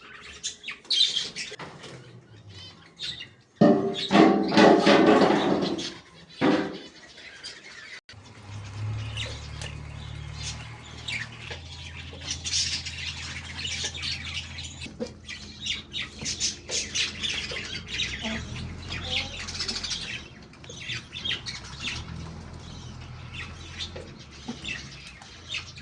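A flock of budgerigars chirping and squawking continuously. About four seconds in, a loud burst of noise lasts about two seconds, and from about eight seconds in a steady low hum runs under the birds.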